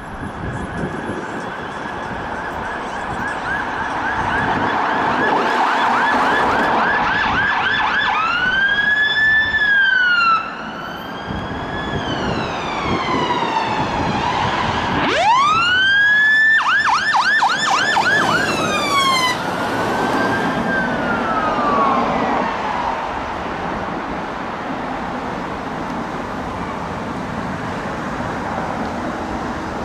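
Fire engine electronic sirens on an emergency run, switching between a fast yelp and a slow rising-and-falling wail, over engine and tyre noise as the appliances pass. The siren fades out in the last third.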